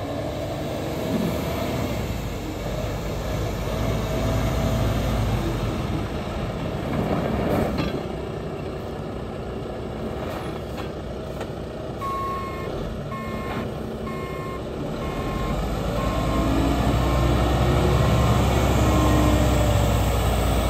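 A 2012 International TranStar 8600 day-cab tractor's diesel engine running as the truck drives, rising in pitch and getting louder over the last few seconds as it pulls toward the camera. A sharp click sounds about eight seconds in. A backup alarm beeps steadily, about one and a half beeps a second, from about twelve to nineteen seconds in.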